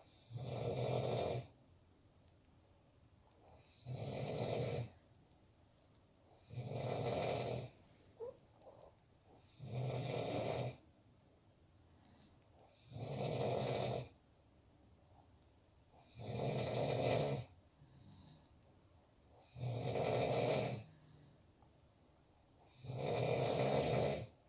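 A man snoring in his sleep: eight long snores, each over a second, coming about every three seconds with quiet breathing gaps between.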